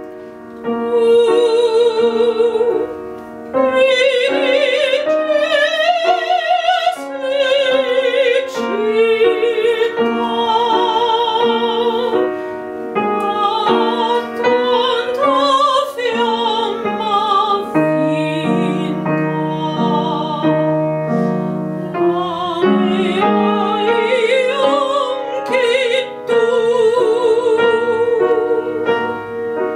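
A woman singing in classical operatic style, holding long notes with a wide vibrato, over a piano accompaniment.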